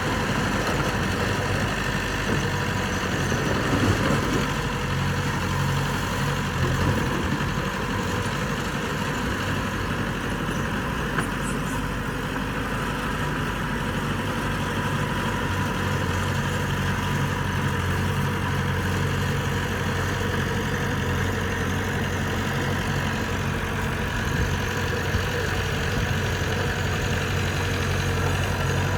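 Bulldozer's diesel engine running steadily with a low, even drone.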